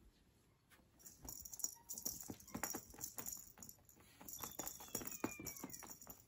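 Beaded cat-teaser string rattling and clicking as it is flicked and dragged across a tatami mat: a quick, irregular run of light clicks starting about a second in.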